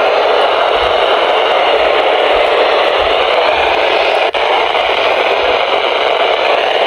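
Weather radio receiver hissing with steady FM static, no signal audible through it, cut by a brief dropout about four seconds in.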